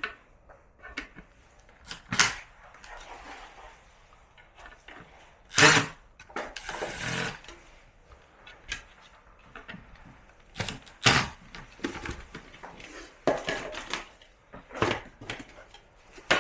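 Irregular clicks and knocks of plastic air-conditioner parts being handled, with a sharper knock about six seconds in followed by about a second of scraping.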